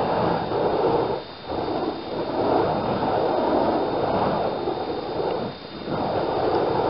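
Steady rushing noise, dipping briefly twice.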